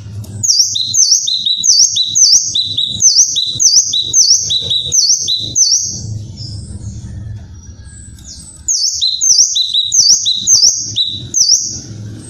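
Cucak kinoi bird calling: a run of sharp, high two-part notes repeated about twice a second. The notes pause for a couple of seconds midway and then start up again.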